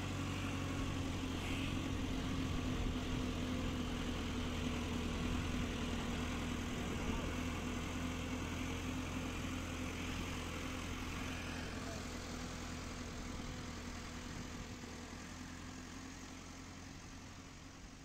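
Farm machine's engine running steadily at an even pitch, gradually fading over the second half.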